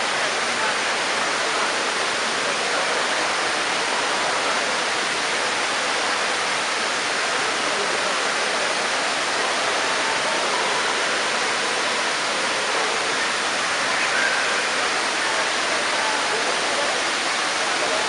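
Steady rushing hiss of a tall indoor waterfall, with water falling in thin streams down a cylindrical wall.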